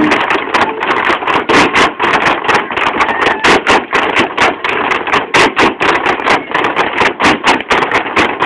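Irish dance hard shoes of a line of dancers striking a stage floor: fast, uneven clattering taps, several a second, with no music under them.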